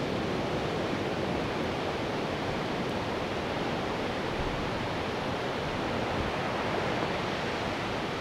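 Steady rush of ocean surf with wind on the microphone, even and unbroken throughout.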